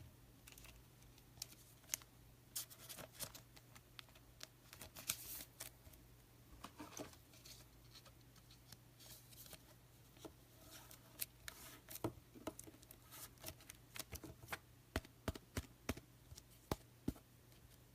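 Trading cards being handled on a table: faint, scattered clicks and short rustles over a low steady hum.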